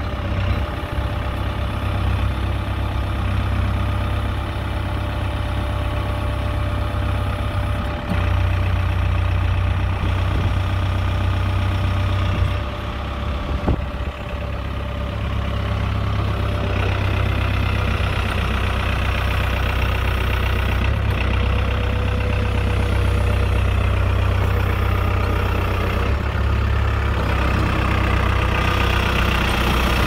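JCB 2CX backhoe loader's diesel engine running steadily at idle, a little louder and busier in the second half.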